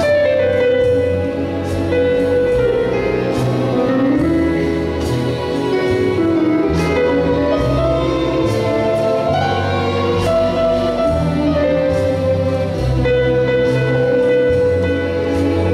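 Live symphony orchestra with a saxophone soloist playing a slow piece: one melody line sliding between long held notes over a low, sustained bass.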